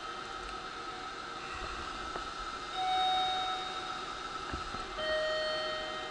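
A two-note electronic chime: a higher note, then about two seconds later a lower one, each ringing and fading over about a second, over a steady hum.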